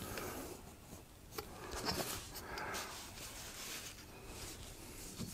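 Faint rubbing and scratching with a few light clicks, from hand work on craft foam pieces at a workbench.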